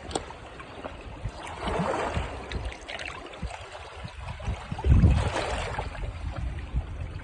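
Sea water washing and splashing in swells, with wind rumbling on the microphone and a loud low gust about five seconds in.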